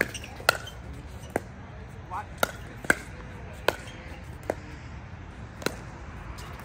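Pickleball rally: about nine sharp pops of the plastic ball coming off paddles, and perhaps the court, spaced irregularly every half second to a second.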